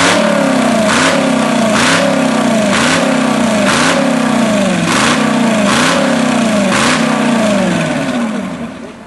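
The V8 6.2 diesel in a 1960 Ferguson 35 pulling tractor is revved in quick blips, about one a second. Each blip is a sharp bark whose pitch jumps up and then falls away. The revving dies down near the end.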